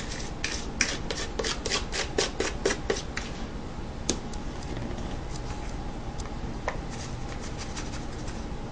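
A spoon scraping and knocking against a bowl while scooping thick cream cheese filling out of it. There is a quick run of scrapes for about three seconds, then only a few more.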